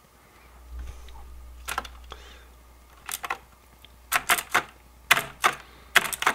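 Mechanical computer keyboard keys clicking as a lump of cleaning gel is pressed down onto them: a few single clicks, then quick clusters of several clicks.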